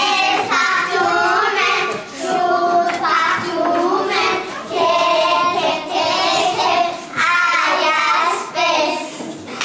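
Young children singing a song together, in sung phrases with short breaks between them.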